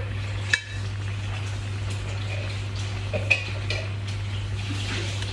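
A few light metal clinks of kitchen utensils against dishes: one sharp clink about half a second in and a couple of softer ones around three seconds, over a steady low hum.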